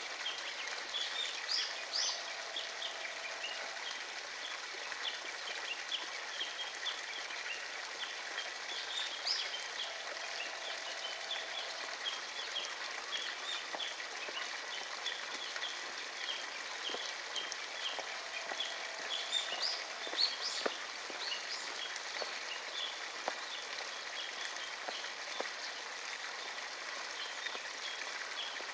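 Outdoor ambience of light rain pattering, with bird chirps now and then and a short held note that repeats three times about eight seconds apart; no train is passing.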